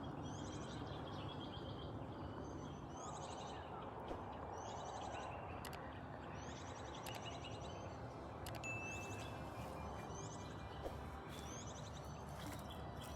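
Birdsong outdoors: a short, high chirping call repeated roughly once a second, over a faint, steady background noise.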